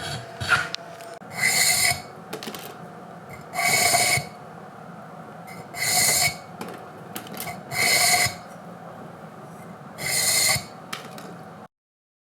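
Bamboo being scraped in five rasping strokes, about one every two seconds, with quieter handling noise between them. The sound cuts off abruptly near the end.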